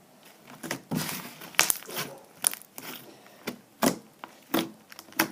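Fluffy slime being squished and stretched by hand, giving a run of sharp, sticky pops and crackles, about eight in four seconds.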